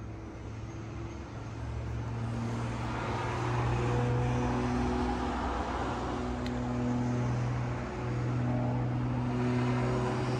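Aircraft engine noise that swells over the first few seconds and then holds steady, over a steady low hum.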